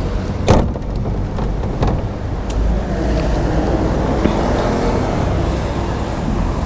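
A sheet-metal gate clanks shut with one sharp latch knock about half a second in, followed by a couple of lighter metal clicks. A steady low rumble runs underneath.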